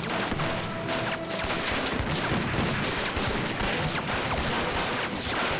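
Sustained battle gunfire: many rifles firing in quick, overlapping succession, with film score music underneath.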